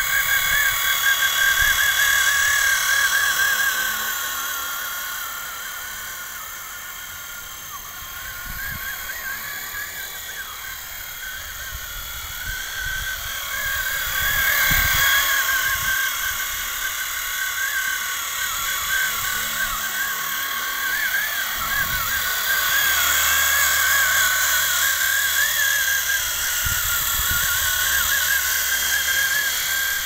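Radio-controlled scale model helicopter, a Revell 1/32 SA330 Puma kit conversion, flying: a continuous high, wavering whine from its motor and rotor that fades as it moves away and swells again about halfway through. Gusts of wind rumble on the microphone.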